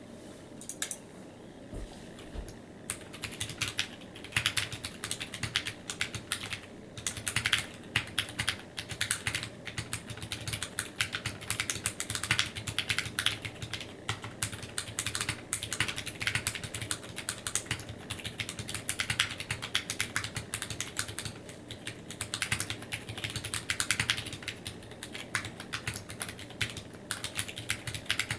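Typing on a Drop Alt mechanical keyboard with Sakurio 62g switches and PBT keycaps: a few single keystrokes, then from about three seconds in a fast, continuous run of key clicks, with the occasional deeper clack of a lubed, band-aid-modded stabilized key.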